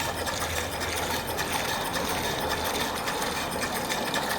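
Antique cast-iron Wagener steam pump running on boiler steam and pumping water, with a steady, rapid mechanical clatter.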